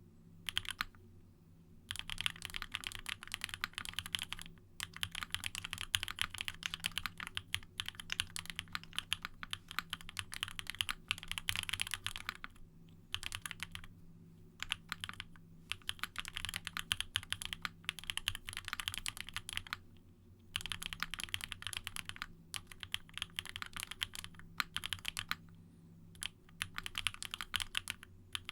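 Fast touch-typing on a custom 60% mechanical keyboard, a Monstargear Sangeo60 with an aluminium plate, lubed Durock POM linear switches and GMK ABS doubleshot keycaps. The keystrokes come in dense runs with several short pauses between them.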